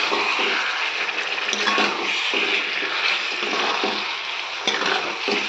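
Mutton pieces and potatoes sizzling in hot oil and masala in a kadai, a steady frying hiss, with a few scrapes of a metal spatula against the pan as they are stirred.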